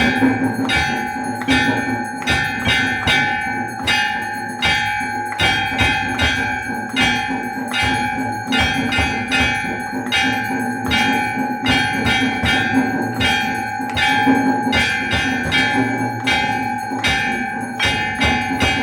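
Hindu temple bells rung continuously for aarti. Sharp strikes come a few times a second at an uneven pace over a steady, overlapping ringing.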